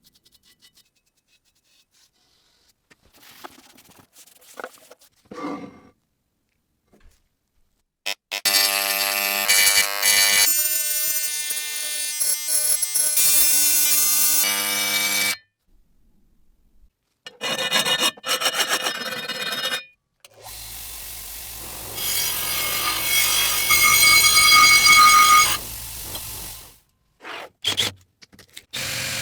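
Power tool working on the skillet in two long runs of about six to seven seconds each, a steady whine with a few short bursts between. Quieter scraping and rubbing come before the first run.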